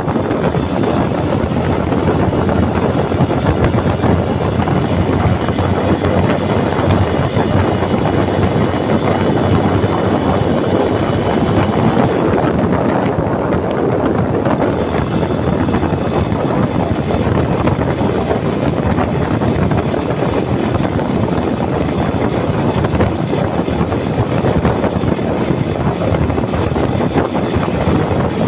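Steady engine and road noise of a moving vehicle, ridden in the open air.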